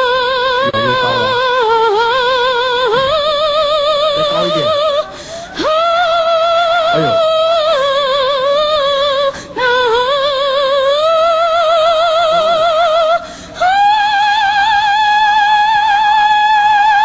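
A woman singing long, high operatic notes with wide vibrato, unaccompanied, in an attempt to shatter a drinking glass with her voice. Three short breaths break the line, and the last and highest note is held for about four seconds near the end.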